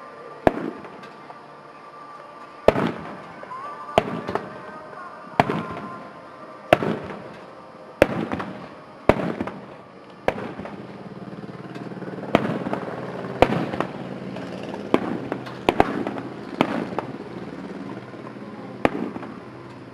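Aerial fireworks shells bursting overhead: a string of sharp bangs about every second or so, each trailing off in a short rumble and crackle.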